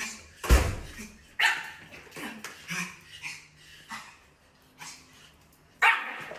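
A dog barking in short, separate barks, the loudest about half a second in and another strong one near the end.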